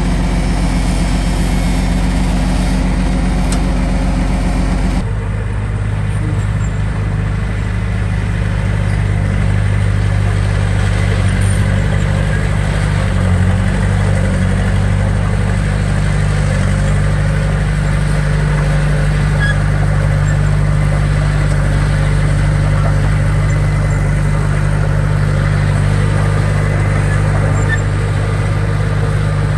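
Diesel engine of heavy earthmoving machinery running steadily, its pitch and sound changing abruptly about five seconds in.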